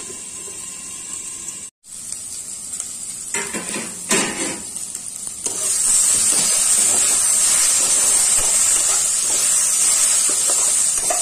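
Sliced potatoes and onions sizzling in hot oil in a frying pan while a spatula stirs them. The sound drops out for an instant near two seconds in, and the sizzle becomes louder and steady about halfway through.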